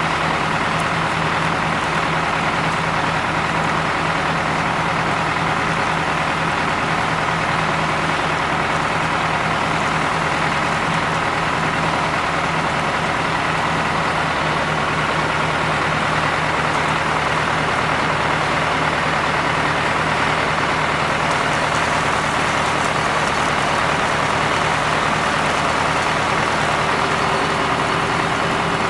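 Septic vacuum truck running steadily, its engine and vacuum equipment making an even, unbroken mechanical drone.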